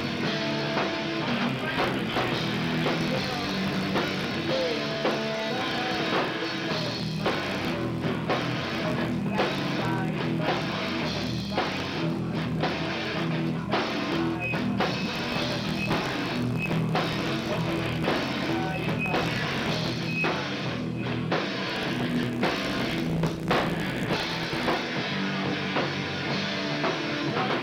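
Hardcore punk band playing live: distorted electric guitars, bass and a drum kit, loud and dense, picked up by a camcorder's built-in microphone.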